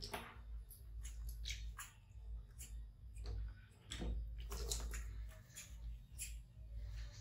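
Faint wet squishing and rubbing as a soaked baby monkey's fur is lathered with baby wash by hand, in short irregular bursts over a low steady rumble.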